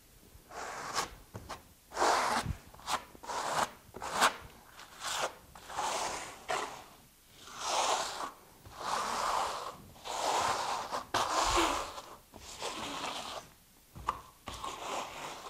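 Hand trowel scraping and smoothing wet EIFS base coat on the wall in a series of strokes of varying length, about one a second, working heavy armor mesh into the base coat.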